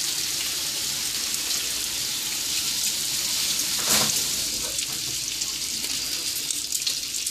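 Bacon strips sizzling steadily in their fat on a hot griddle. About four seconds in a strip is turned with a utensil, giving one short, louder scrape.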